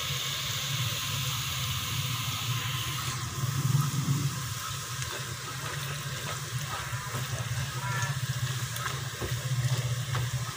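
Kue bawang dough pieces deep-frying in a pot of hot oil: a steady sizzle, strongest for the first three seconds or so, then quieter with scattered pops and crackles, over a steady low hum.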